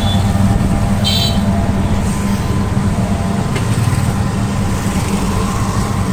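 Ride in a rickshaw through town traffic: a steady low hum of the vehicle running, with road and street noise. A brief high-pitched beep sounds about a second in.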